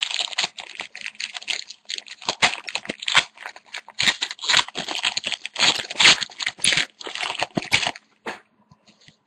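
Crinkling and tearing of a foil trading-card pack wrapper as it is ripped open and crumpled by hand: dense, irregular crackling that thins to a few scattered crackles near the end.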